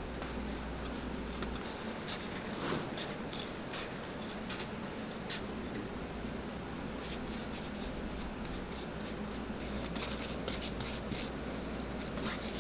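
Light scratching and clicking of hand work: a marker tracing on a crepe sheet, then a glue brush dabbed in a can of cement and spread over a boot's insole. Many short clicks and scrapes sound over a steady low hum.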